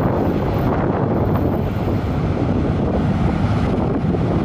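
Steady roar of an Airbus A380's Rolls-Royce Trent 970 jet engines as the airliner rolls out after touchdown, mixed with wind buffeting the microphone.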